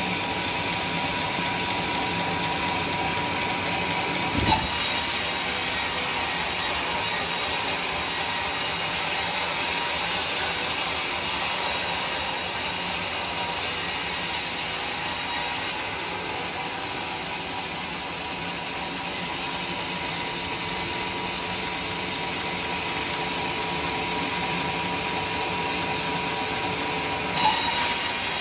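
Homemade band sawmill running with a new blade sawing through a teak log: a steady mechanical whirr with a faint whine. A sudden knock sounds twice, a few seconds in and near the end.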